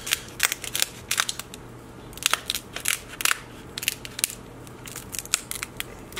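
Kitchen shears cutting through the shell of a cooked Alaskan king crab leg: a run of sharp, irregular crunching snips and cracks.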